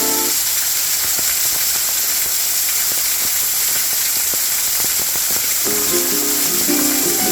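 Rain falling steadily: a constant hiss with faint scattered ticks of drops. Background ukulele music stops just after the start and comes back in about a second and a half before the end.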